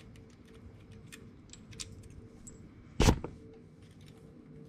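Light metallic clicks as a clutch assembly and its washer are handled and fitted onto the engine shaft of a 125cc ATV, with one sharp metal clank about three seconds in.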